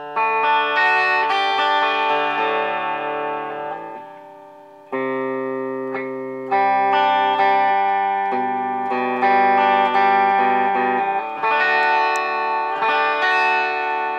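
Donner DTC-100W Telecaster-style electric guitar played through an amp on its bridge pickup alone, with the humbucker split bypassed for the full raw bridge tone: a series of chords strummed and left to ring, a new chord coming in every few seconds.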